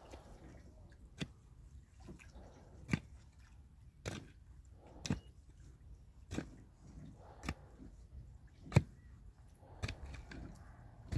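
A short-handled pick striking dry, stony soil while digging a planting hole, about one blow a second, ten blows in all, with loose earth scraping between the blows.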